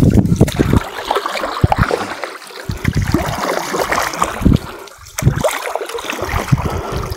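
Water splashing and sloshing in irregular strokes as a long wooden boat is pushed off from the bank with a pole.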